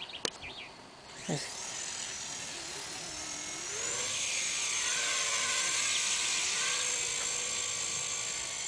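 Walkera CB100 micro RC helicopter's electric motors and rotors spooling up: a high whine that starts about a second in, rises in pitch for a few seconds, then holds steady as it flies. A sharp click comes just before the spool-up.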